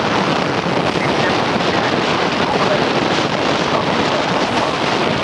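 Wind blowing over the microphone on the deck of a moving river ferry: a steady, loud rushing.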